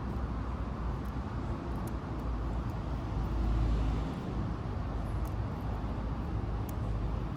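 Steady low rumble of road traffic, swelling slightly midway as a vehicle passes, with a few faint light clicks of small chassis parts being handled.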